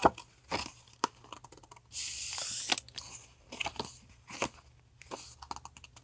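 Paper and plastic-packed stationery being handled: scattered light taps and clicks, with a longer crisp rustle about two seconds in.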